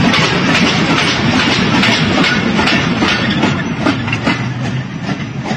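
Freight train wagons rolling past close by at speed: a loud rumble with a rapid clatter of wheels over the rail joints, fading a little near the end.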